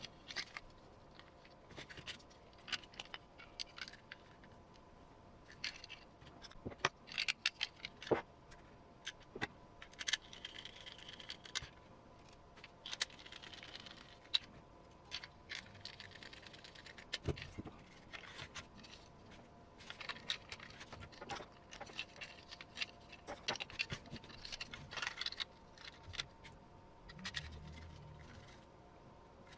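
Light, scattered clicks, taps and scrapes of small plastic kit parts and hardware being handled and fitted together during hand assembly of an RC model chassis.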